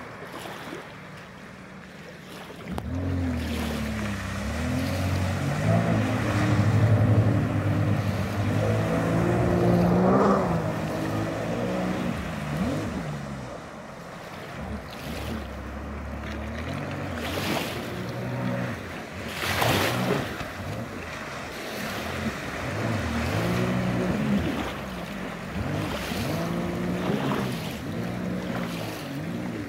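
Jet ski engine running hard on the water, its pitch rising and falling again and again as the throttle is worked through turns, over the hiss of water spray.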